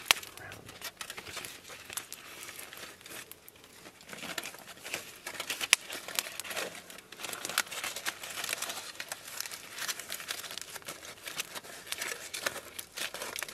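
Aluminium foil being folded and crimped by hand into a packet, crinkling irregularly, with one sharp snap about halfway through.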